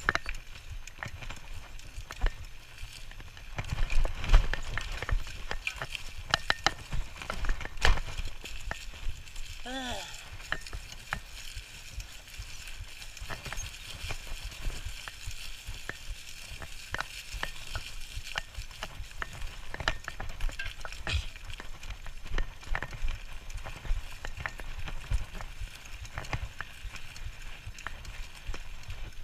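Bicycle riding over dry leaves and pine needles: the tyres keep up a steady crackle, and the bike rattles with many irregular clicks and knocks over uneven ground.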